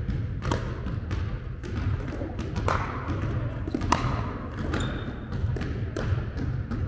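Pickleball paddles striking the plastic ball: sharp pops at irregular intervals, the loudest about four seconds in, over a steady low rumble. A brief high squeak near five seconds.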